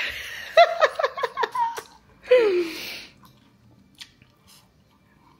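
A quick run of giggling laughter, then a falling vocal 'ooh'. Faint crunches follow about four seconds in as a crispy roast potato is bitten and chewed.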